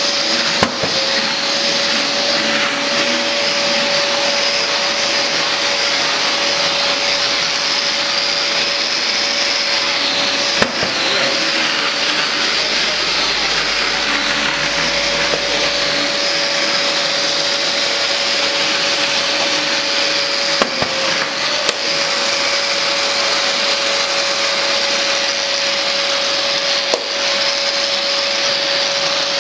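Festool CTM 36 E AC HD mobile dust extractor running steadily, a constant rushing noise with a steady whine over it, broken by three short knocks spread through.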